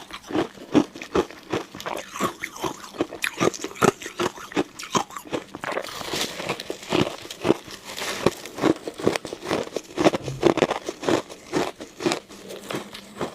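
Ice cubes being bitten and chewed close to the microphone: a rapid, irregular run of sharp crunches and cracks, several a second.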